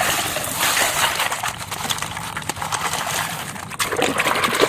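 Plastic toy vehicles clattering and rattling as they are unpacked, with a steady rustling hiss full of small clicks and knocks.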